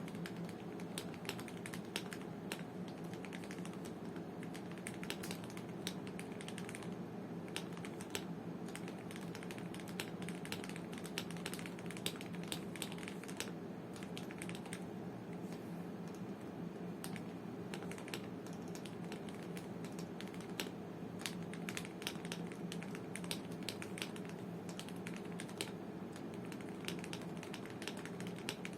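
Typing on a Gamakay/Womier K87 mechanical keyboard fitted with lubed Gateron Yellow linear switches and XDA-profile keycaps: a steady, irregular run of keystrokes, with a brief pause about seven seconds in.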